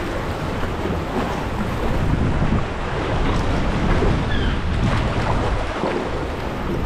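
Choppy sea water sloshing and splashing around a sea kayak and against cave rock, with kayak paddle strokes and wind buffeting the microphone.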